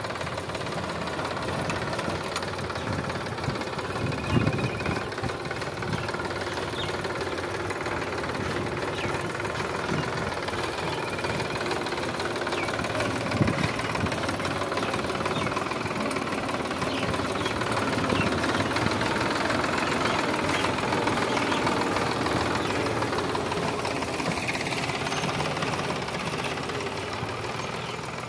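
Sonalika DI 745 III tractor's three-cylinder diesel engine running steadily under load as it works a rear-mounted rotavator through weeds and soil, with two sharp knocks, about four and thirteen seconds in.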